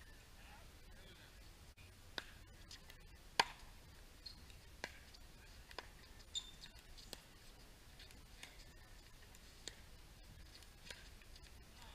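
Pickleball rally: paddles hitting a plastic pickleball back and forth, about nine sharp pops spaced roughly a second apart, the loudest about three and a half seconds in.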